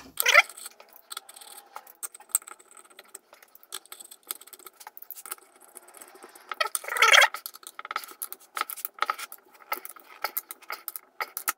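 Small metal clicks and clinks as steel socket-head screws are handled and driven into a vice's compensation plate with a T-handle hex key, with two louder bursts of rattling, one just after the start and one about seven seconds in.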